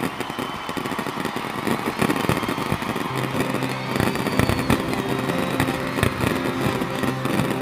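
Aerial fireworks bursting: a steady run of bangs and crackling. About three seconds in, sustained musical tones from loudspeakers come in under the bursts.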